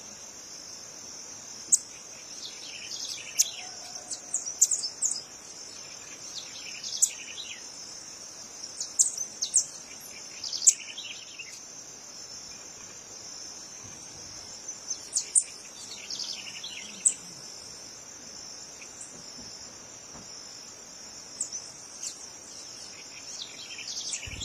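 A steady high-pitched insect trill, like crickets, runs throughout. Over it, birds give short sharp chirps in scattered clusters every few seconds.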